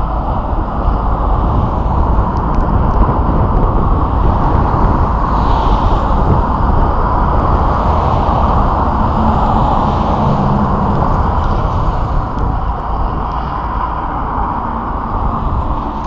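Strong wind buffeting the camera microphone: a loud, steady rumble with no break.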